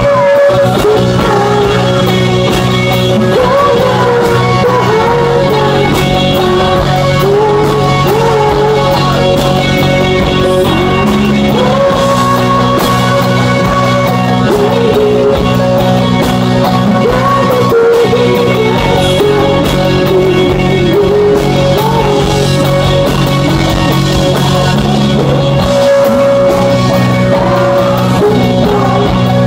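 Rock band playing live: electric guitar and bass holding long chords that change every few seconds, with a male voice singing a slow melody over them.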